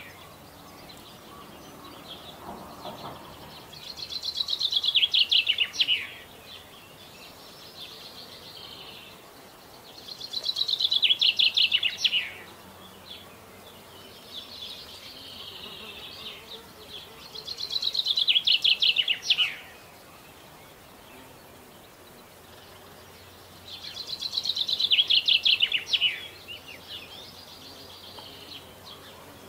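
A songbird repeats the same short, fast trilled song about every six to seven seconds, each song lasting about two seconds. A fainter bird sings in the gaps between them.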